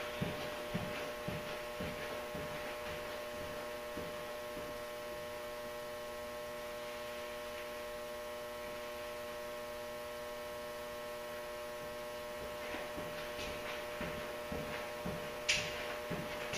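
Steady electrical hum made of several level tones, with faint scattered knocks and a sharp click about a second before the end.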